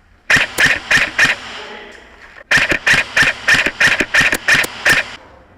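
G&P Defender MK18 airsoft electric rifle firing shots in quick succession: four shots, a pause of about a second, then about ten more at roughly four a second.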